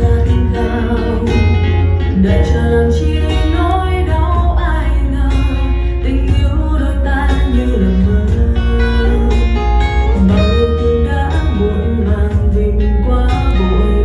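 Music played back on a Harman/Kardon Citation 200 speaker in a sound test: a ballad led by plucked acoustic guitar over a steady, strong bass.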